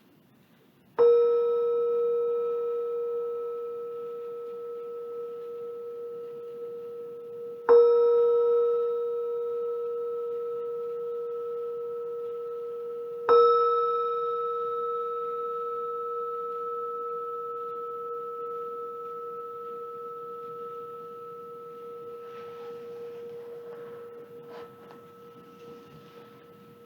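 A meditation bell struck three times, about six seconds apart. Each strike gives a clear ringing tone with several fainter higher overtones that dies away slowly. The third ring is left to fade out.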